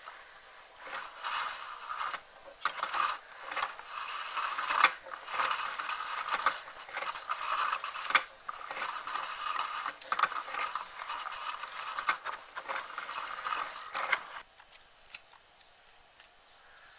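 Homemade coil-winding machine cranked by hand: its sewing-machine gears, turn counter and wire-laying feed clatter and click steadily as wire winds onto the coil. It stops about fourteen seconds in.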